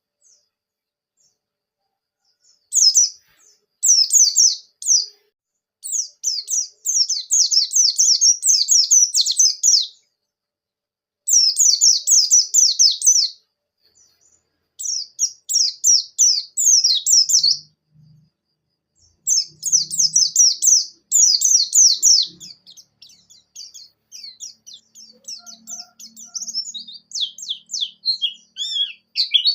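A white-eye (pleci) singing in rapid, high-pitched twittering phrases, each lasting one to four seconds, with short pauses between them. The phrases grow softer and more scattered near the end.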